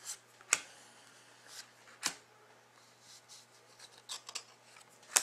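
Trading cards handled one at a time: a few short, sharp snaps as cards are slid off a stack, with faint rubbing of card on card between them.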